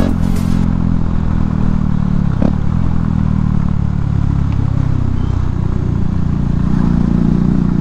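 Hero Xpulse 200 motorcycle's single-cylinder engine running steadily while being ridden, its pitch holding even. Background music fades out in the first moment.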